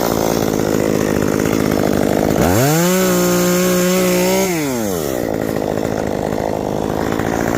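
Chainsaw engine idling, revved up sharply to full throttle about two and a half seconds in, held there for about two seconds, then let back down to idle.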